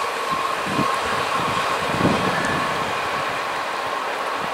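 ICF passenger coaches of an express train running away down the track: wheels rumbling on the rails under a steady high ringing tone, with a few dull knocks about one and two seconds in.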